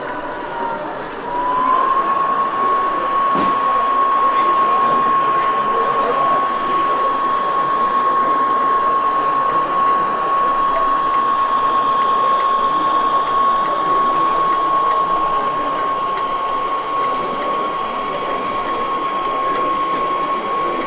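Gauge 1 Köf II model shunting locomotive running: a steady high whine from its drive, dipping slightly and then stepping up in pitch and loudness about a second and a half in as it speeds up, over background hall chatter.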